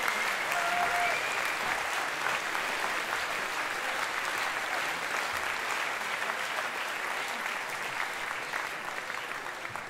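Audience applauding at the end of a song, with a high call or two from the crowd in the first second or so. The clapping slowly dies away toward the end.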